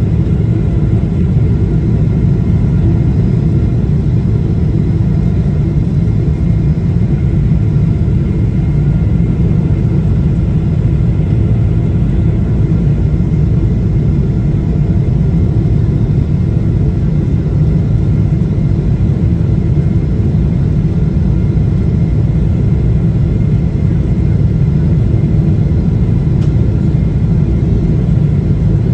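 Steady low rumble of a jet airliner's engines and airflow heard inside the passenger cabin during the descent to landing, with faint steady higher tones above it.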